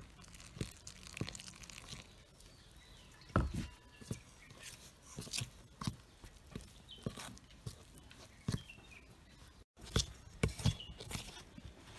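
Steel spoon scraping and clicking against a steel bowl while stirring rice flour, grated coconut and hot water into a dough, in irregular soft scrapes and taps.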